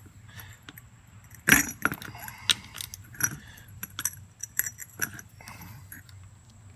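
Metal hand tool clinking as a 10 mm wrench is fitted to and worked on the nuts holding the fan to the fan clutch: a series of irregular sharp metallic clicks and clinks, the loudest about one and a half seconds in.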